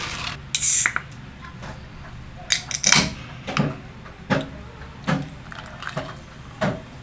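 A canned drink poured over ice into a glass, splashing and foaming up, with several short knocks and clinks of the can and ice against the glass.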